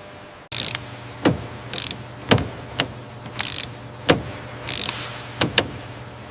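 A mechanism working: short bursts of air hiss alternating with sharp clicks, about one event every half second, over a steady low hum.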